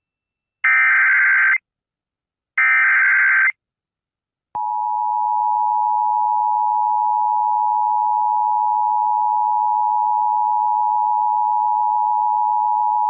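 Emergency Alert System activation: two one-second bursts of warbling SAME digital header data, about a second apart. Then, about four and a half seconds in, the steady two-tone EAS attention signal (853 and 960 Hz) comes on and holds. This is the standard lead-in to a National Weather Service flash flood warning.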